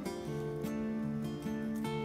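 Background music: acoustic guitar strumming and picking, with notes changing about every half second.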